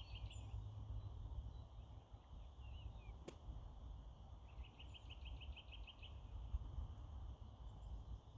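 Wind rumbling on the microphone, with a small songbird singing a rapid trill of evenly repeated high notes at the start and again about five seconds in. A single sharp click a little past three seconds.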